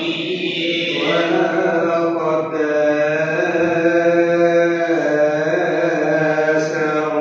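Coptic Orthodox liturgical chant by a male voice, sung into a church microphone during the signing of the offering bread. It is slow, with long held notes that shift pitch only a few times.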